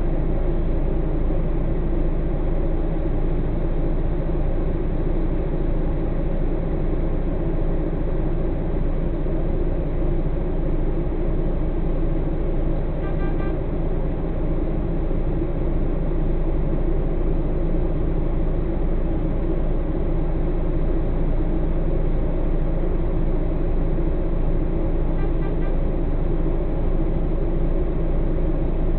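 Heavy truck's diesel engine idling steadily while the truck stands still, heard from inside the cab. Twice, about halfway through and again near the end, a brief faint high tone sounds.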